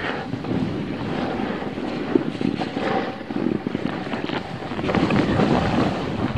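Wind rushing over the camera's microphone at riding speed, with the uneven scraping hiss of a snowboard sliding over packed snow.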